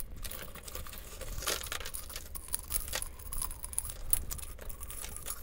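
A jarful of costume jewelry (metal chains, beads, rings and earrings) being dumped and shaken out of a plastic jar onto a tabletop: a run of irregular light clinks, rattles and clicks as the pieces tumble and land.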